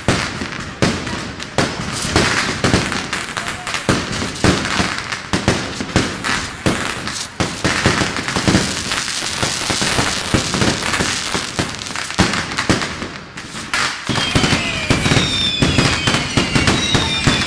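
Fireworks display going off: dense, continuous crackling and popping of bursting shells and crackling stars. Near the end several whistles fall in pitch.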